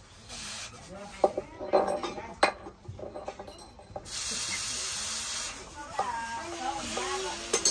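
Hot forged axe head being quenched in a trough of water, hissing with steam in bursts: a short one about half a second in and a longer one a few seconds later. A few sharp metal clinks of the tongs and blade come in between.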